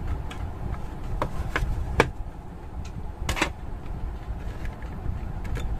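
Sharp plastic clicks and knocks as the DeWalt DCB107 charger's plastic case is pried apart and handled, the loudest about two seconds in and a longer scrape a little after three seconds, over a low steady background rumble.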